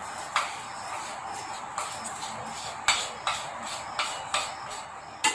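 Spoon scraping and tapping against a glass bowl and a steel mixer-grinder jar as powdered jaggery is tipped in: a series of light clinks spread over a steady hiss.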